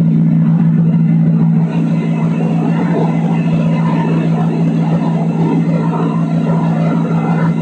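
Motorboat engine running with a steady low drone under a haze of water and wind noise. It is heard from an old camcorder tape played back through a laptop speaker.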